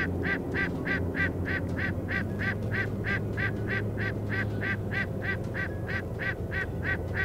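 Waterfowl honking, a long unbroken series of short calls about three a second, very evenly spaced.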